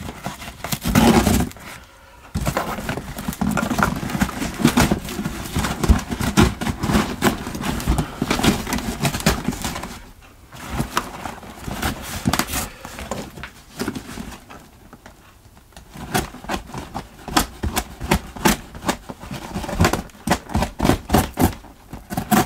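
A cardboard box being cut along one side and handled: rasping cuts, scraping and rustling with many short clicks. It goes quieter briefly around ten seconds in and again around fifteen seconds in.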